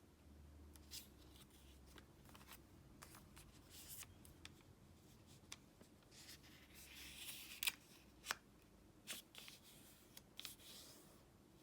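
Origami paper being handled and folded: soft paper rustling with scattered light crinkles and taps, the sharpest a pair about two-thirds of the way through.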